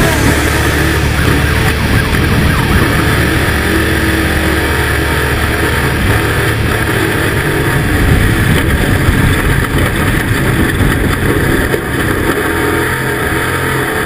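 Off-road race vehicle engine running loud and steady at high revs.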